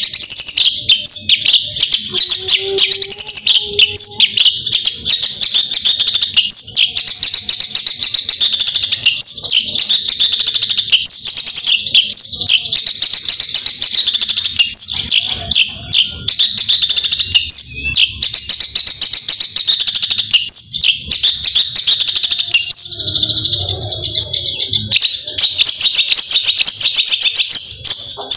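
Long-tailed shrike (cendet) singing a loud, rapid-fire chattering song of quick high notes, barely pausing, with a short lull about 23 seconds in.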